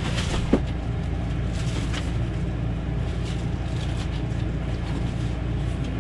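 Cardboard box and plastic packing rustling and scraping, with a sharp click about half a second in, as a flat-screen TV is lifted out of its box, over a steady low hum.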